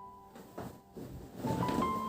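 Soft background piano music, with new notes struck near the end. Two short noises sit under it, about half a second in and again around a second and a half in.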